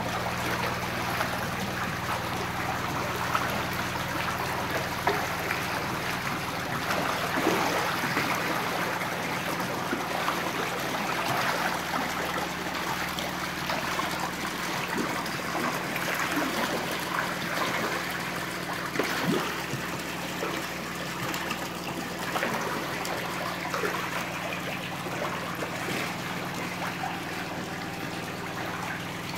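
Water running and splashing steadily in a fish pond, with many small splashes and a steady low hum underneath.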